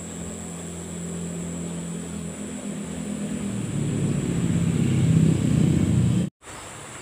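A motor engine's low hum drawing nearer and growing steadily louder, cut off abruptly about six seconds in.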